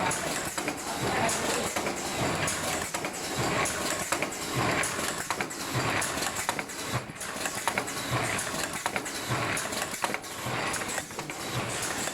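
Ultrasonic welding machine and its parts feeder running: a steady mechanical clatter with repeated short clacks.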